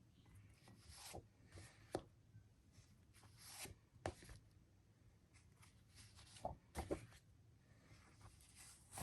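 Faint rustling and soft taps of comic books being handled and set down, with several brief paper-and-cardboard noises spread through a near-silent room.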